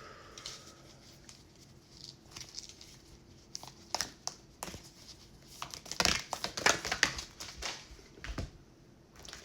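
A large deck of cards being shuffled by hand: scattered papery flicks and slaps, building to a dense, louder flurry about six to eight seconds in.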